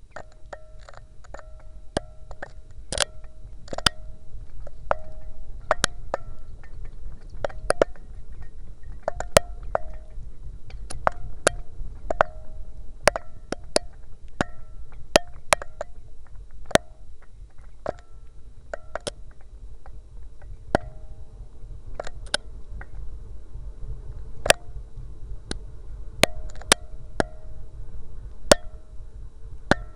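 Irregular sharp knocks and clicks, about two a second, with short hollow tones ringing after many of them, over a low rumble: a keychain camera tapping and scraping against the walls of 4-inch PVC well casing as it is lowered down the well.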